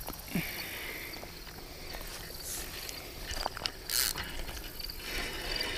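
Insects chirping steadily in the background of a summer lakeshore, with a few short clicks and rustles, including a brief hiss about four seconds in.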